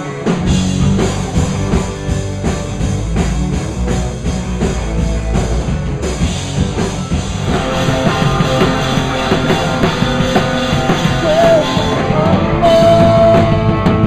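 A rock band playing loud, fast rock, driven by a drum kit, with a held high note near the end.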